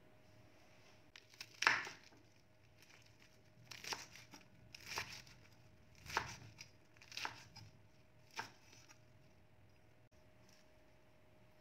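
Cleaver chopping lettuce leaves on a wooden cutting board: about six chops, roughly a second apart, each with a leafy crunch.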